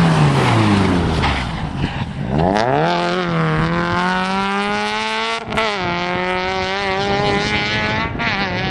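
Rally car engine at high revs: its note falls as the car goes past, then climbs sharply as it accelerates and holds a high, steady note, with a quick gearshift about five and a half seconds in.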